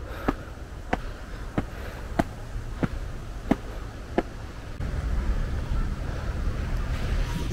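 Footsteps climbing a long flight of steps: a short sharp tap about every two-thirds of a second. A low rumble joins about five seconds in.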